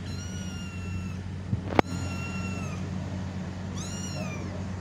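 Kitten meowing three times, high-pitched calls each under a second long, the last one rising and then falling. A single sharp click comes between the first and second calls.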